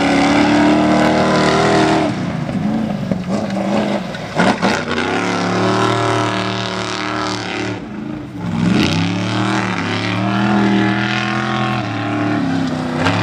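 A Formula Offroad buggy's engine revving hard under full throttle, its pitch rising and falling with the throttle. It drops away briefly about eight seconds in, then climbs again.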